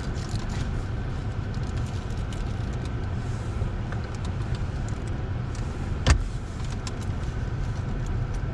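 Car running at low speed or idling, heard inside the cabin as a steady low rumble with light ticks and rattles, and one sharp click about six seconds in.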